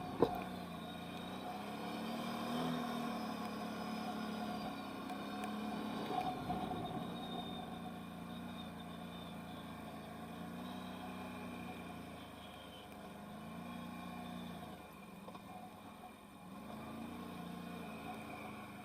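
Can-Am Outlander 1000R XMR ATV's Rotax V-twin engine revving up and easing off again and again under riding load, its pitch swelling and falling about five times. A sharp click sounds just at the start.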